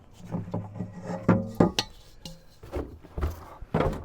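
Dishes and kitchen items being handled and set down on wooden cabinet shelves: a series of clinks and knocks, the sharpest a little over a second in.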